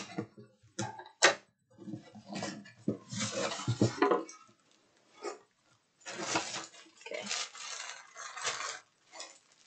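Subscription crate being opened by hand: a couple of sharp clicks or knocks about a second in, then stretches of rustling packaging as the contents are handled.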